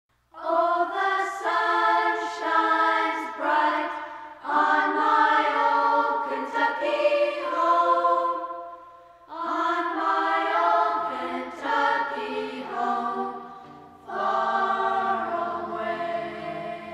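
A choir singing without accompaniment, in four phrases with short breaks between them; lower voices join in during the second half.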